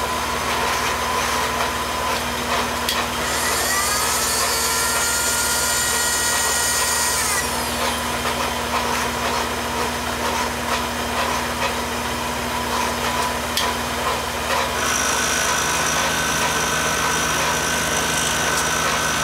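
Grizzly mill-drill running a roughing end mill that cuts pockets into a metal exhaust-manifold spacer plate: a steady motor and gear whine with cutting noise. A higher whine joins from about 3 to 7 seconds in, and the machine's pitch changes about 15 seconds in.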